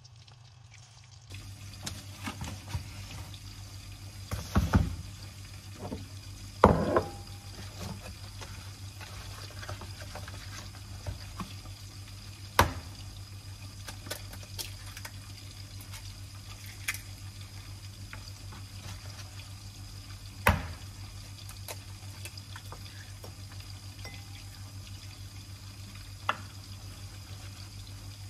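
Water running at a sink over a steady low hum, with scattered clinks and knocks; four of them stand out louder.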